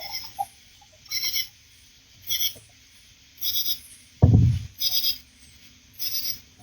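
A short, high-pitched animal call repeating about once a second, with one low thump about four seconds in.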